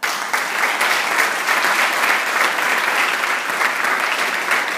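Audience applauding, dense loud clapping that starts all at once and keeps up steadily.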